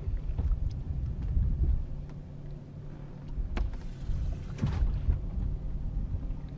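Boat noise on open water: a low rumble of wind and water with a faint steady hum, a few sharp clicks and knocks on the boat, and a brief rush of noise about four and a half seconds in.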